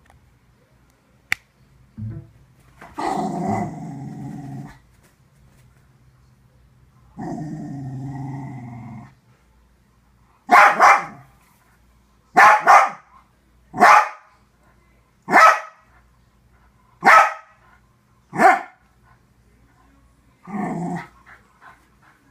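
Fox terrier growling twice in long, low growls, then barking six times, about one bark every one and a half seconds, with a shorter bark near the end. It is a dog that hates a computer's USB sound effects.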